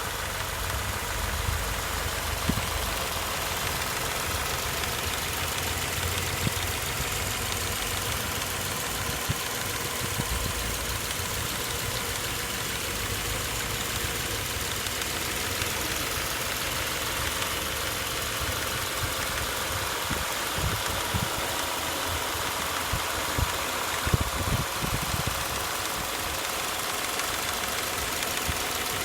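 Subaru FB25 2.5-litre flat-four engine running steadily with a ticking knock (цокот) that is the fault being documented. A few louder clicks stand out about three-quarters of the way through.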